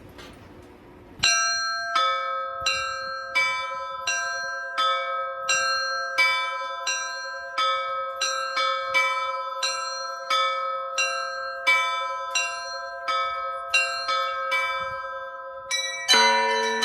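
Russian Orthodox church bells ringing a festive peal: a few small high bells struck in a quick, steady repeating pattern about a second in. About sixteen seconds in, deeper, heavier bells join with a loud strike.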